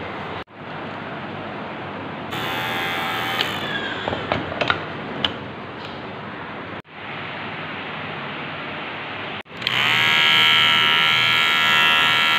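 Dingling electric hair clipper running with a steady buzz as it trims a beard, starting loud about three-quarters of the way in. Before that, a steady hiss with a few clicks.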